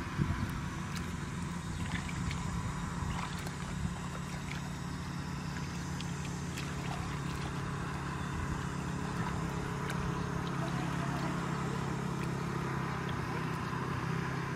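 A steady, low engine drone runs throughout, over faint splashes and ticks of hands working in shallow muddy water.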